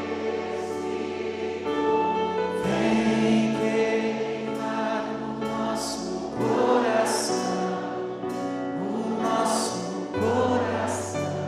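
Christian worship music: a choir singing over held chords.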